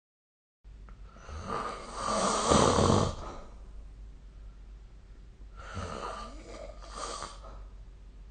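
A person snoring in sleep. There are two snores: a long, loud one from about a second and a half in, and a quieter second one about six seconds in.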